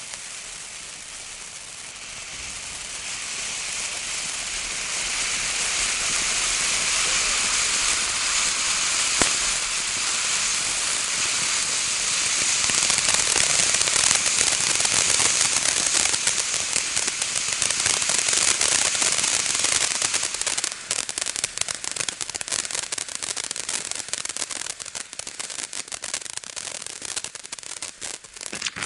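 500-gram firework fountain burning: a steady hissing spray that swells over the first few seconds. In the second half, dense crackling takes over and then thins out near the end.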